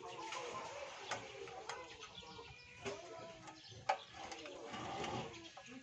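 Scattered clicks and light metal knocks from parts being handled on a small Nitto engine, the sharpest about four seconds in.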